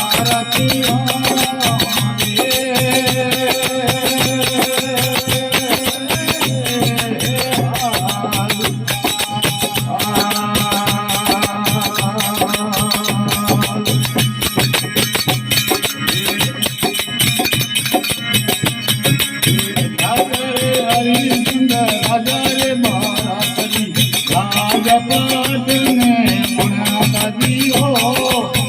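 Folk devotional aarti music: a fast, steady rattle of jingling hand percussion under held melodic notes, with little or no clear singing.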